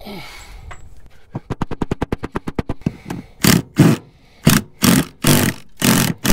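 Ryobi cordless driver working a screw out of a fitting on a fiberglass boat hull: a rapid, even run of clicks, about a dozen a second, then five short bursts of the motor as the trigger is pulsed.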